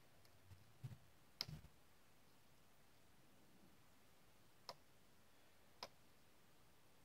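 A lock pick working the pin tumblers of an American 1105 padlock clamped in a vise: a few small, sharp metallic clicks, a cluster in the first second and a half with the loudest carrying a light knock, then two single clicks about a second apart.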